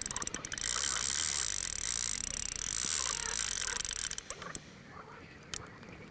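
Carp fishing reel making a steady, high ratcheting buzz while a hooked carp is being played. It stops abruptly about four seconds in, and a few sharp clicks follow.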